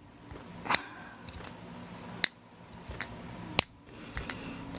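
Sharp metallic clicks, about five at irregular intervals, as the magnet rotor, shaft and end bell of a disassembled brushless RC car motor are handled and knock against each other.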